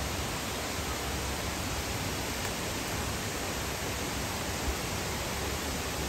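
Steady rushing of Mantayupan Falls, a tall waterfall pouring into its pool, an unbroken noise with a deep low rumble.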